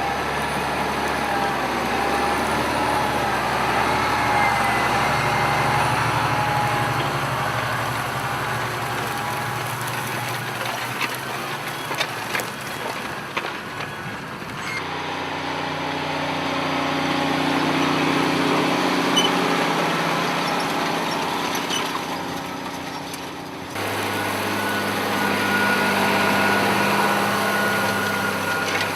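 Farm tractor engines running steadily, the sound changing abruptly about fifteen seconds in and again about nine seconds later. A few sharp clicks come around the middle.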